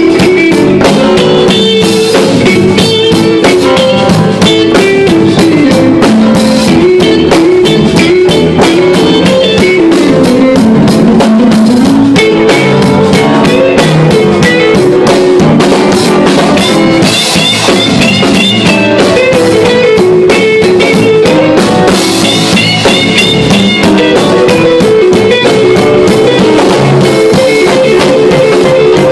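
Live blues band playing an instrumental stretch with no singing: electric guitars over a drum kit.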